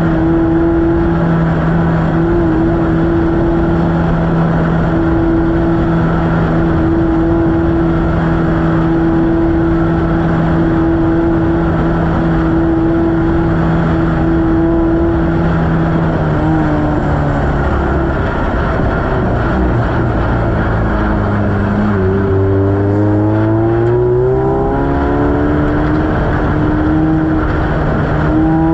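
Off-road race vehicle's engine running hard at steady revs. It eases off about sixteen seconds in, then revs climb steadily back up to the same pitch near the end, over constant rough rumbling noise.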